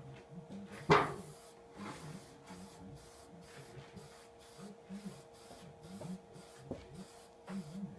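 Aerosol spray-paint can hissing out black paint in short bursts, with one sharp knock about a second in.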